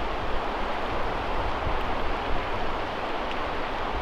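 Steady rush of a shallow, fast-flowing river running over riffles.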